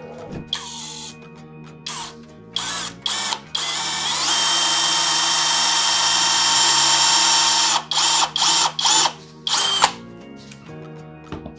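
Cordless brushless drill boring into the end grain of a narrow wooden strip: a few short trigger blips, then one steady run of about four seconds that spins up at the start, then several more short bursts near the end.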